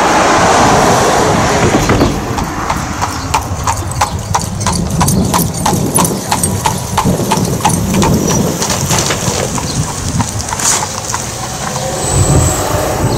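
Horse hooves clip-clopping at a steady trot, about three hoofbeats a second, rising from about two seconds in and fading out near the end, with wind rumbling on the microphone.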